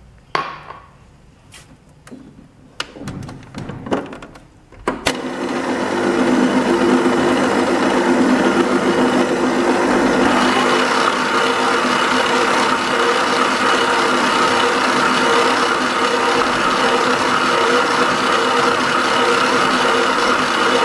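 A few clicks and knocks, then about five seconds in a stand mixer starts and runs steadily with a motor whine. Its dough hook is kneading olive oil into a semolina and flour bread dough.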